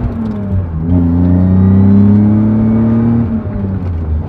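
BMW E36's engine heard from inside the cabin, accelerating up through the gears. The revs drop at an upshift right at the start, climb steadily for about two seconds, then drop again at the next shift a little past three seconds in and hold steady.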